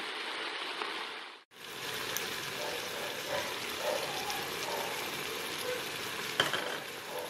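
Spinach, onion, tomato and coriander leaves sizzling as they sauté in oil in an electric pressure cooker's pot, stirred with a spatula, giving a steady hiss. The sound cuts out for a moment about a second and a half in.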